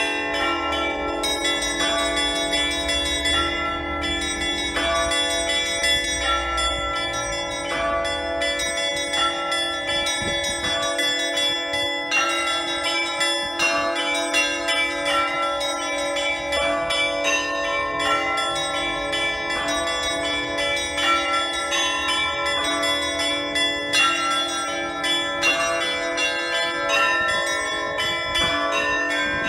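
Russian Orthodox church bells rung by a single bell ringer in a festive Easter peal: small bells struck in quick rhythmic patterns over the steady ring of a larger bell, without a pause.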